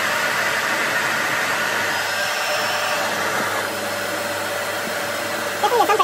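A handheld hair dryer running steadily, blowing air into a plastic bag held around an inflatable toy's valve to pump it up. It drops a little in level a little past halfway.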